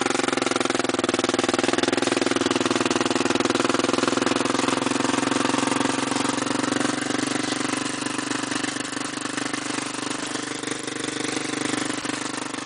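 ATV engine running steadily, easing off a little about halfway through.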